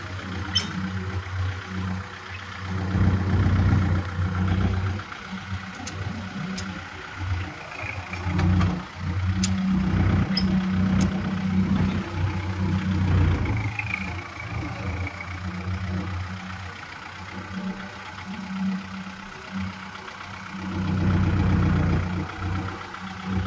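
Kubota MU4501 tractor's four-cylinder diesel engine running while the tractor is driven slowly, its note swelling and easing several times with the throttle. A few faint clicks come through in the middle.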